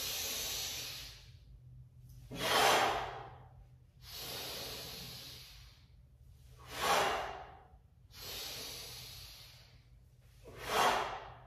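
A man breathing hard in a slow rhythm while doing resistance-band Romanian deadlifts. There are three cycles about four seconds apart, each a longer, quieter breath followed by a short, louder exhale.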